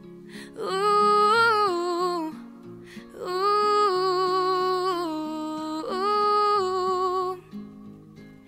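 Wordless 'ooh' singing by a solo voice in three long, sliding phrases over acoustic guitar accompaniment.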